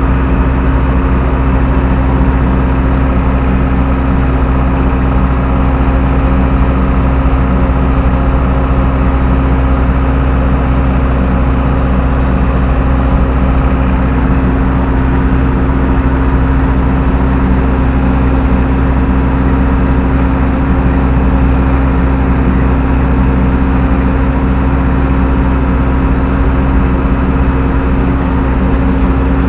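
Zetor 6745 tractor's four-cylinder diesel engine running at a steady speed, its even drone holding constant.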